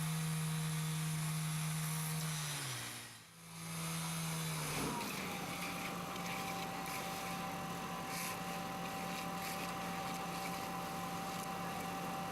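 Small gasoline engine of a vibrating concrete screed running at a steady speed. About three seconds in the sound dips briefly and gives way to another steady engine hum with a thin, high whine over it.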